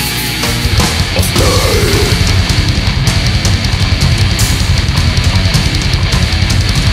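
Death metal music: dense, heavily distorted band sound with fast, even drumming.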